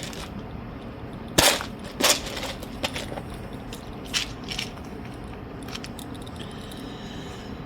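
A few sharp, isolated clicks and taps of small tools and tiny screws being handled on a repair bench, the loudest about a second and a half and two seconds in.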